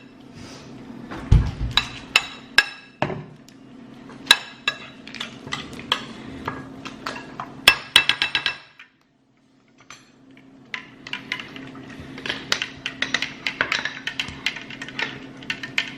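Cutlery clinking and scraping against a bowl of elote as it is stirred and eaten: a run of sharp clinks at an uneven pace, with a short break in the sound about nine seconds in and busier clinking after it.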